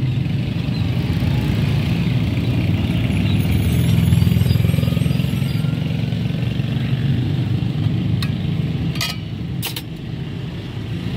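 Street traffic with vehicle engines giving a steady low rumble, and two short clicks near the end.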